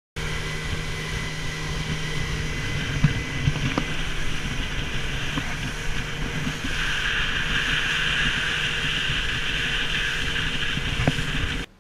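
Rigid inflatable motorboat under way at speed: its engine running steadily under heavy wind noise on the microphone, with a few short thumps as the hull meets the waves. The noise grows brighter from about seven seconds in and cuts off suddenly near the end.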